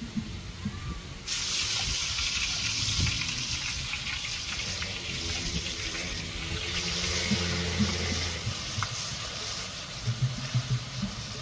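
Food cooking in a large steel wok over a fire: a steady sizzling hiss that starts suddenly about a second in.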